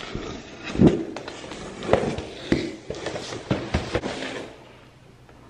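Cardboard shipping box being handled and opened: irregular knocks and thuds with scraping and rustling, dying down near the end.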